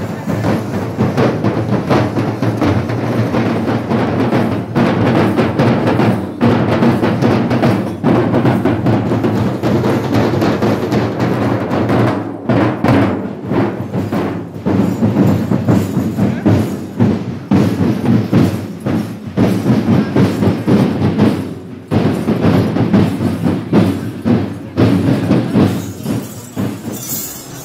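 Drum ensemble beating a fast, dense rhythm, with brief lulls about twelve and twenty-two seconds in.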